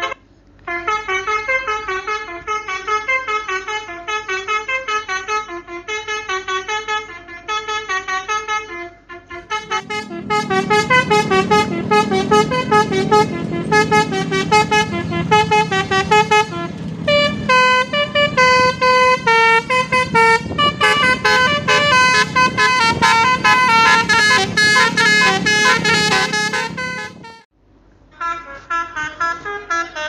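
Basuri multi-tone "telolet" bus horns playing quick, repeating melodies of short notes, in three takes cut together. During the long middle take, from about ten seconds in until near the end, a low rumble sits under the horn.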